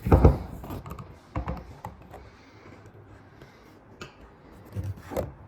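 Scattered light clicks and taps from handling a rifle, with a louder knock right at the start.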